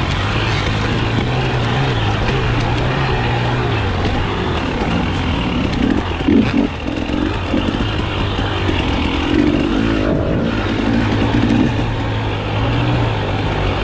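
KTM dirt bike engine running under load on a rough trail, its pitch rising and falling with the throttle, with wind noise and a few knocks from the bumps.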